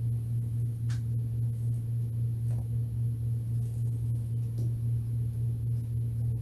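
A steady low-pitched hum, with a few faint ticks.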